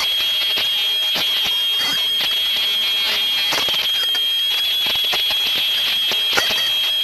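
Embossing machine running with a steady high-pitched whine at an even level, with scattered clicks over it.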